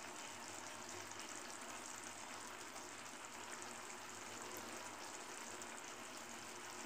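Onion gojju simmering in plenty of oil in a kadai, a faint steady sizzle with fine crackling as it bubbles. The oil has separated out at the sides, the sign that the gojju is cooked through.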